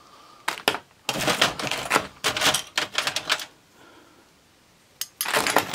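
Small vintage sewing machine parts clinking and clattering as they are handled and set down: rapid bursts of clicks, a short pause about three and a half seconds in, then more clatter near the end.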